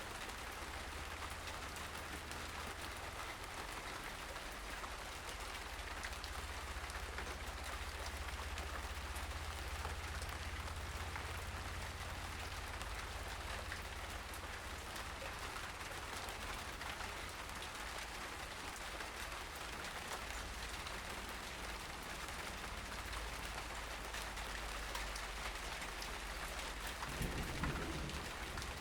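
Steady outdoor ambience: an even hiss sprinkled with fine ticks over a low rumble on the microphone, with a brief louder rumble near the end.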